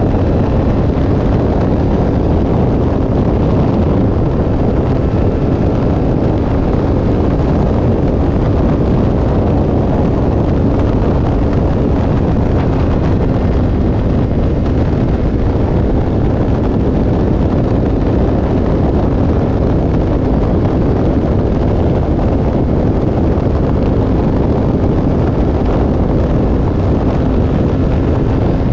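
Motorcycle riding at speed: heavy wind rushing over the bike-mounted camera's microphone, with the engine's steady tone beneath it.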